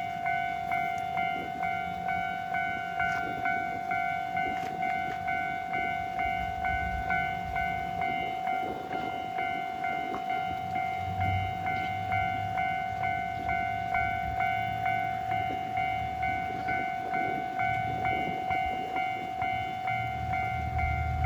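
Japanese railway level-crossing warning alarm ringing its standard electronic tone, a steady repeated ding at a little over one strike a second. A low rumble joins about halfway through and again near the end.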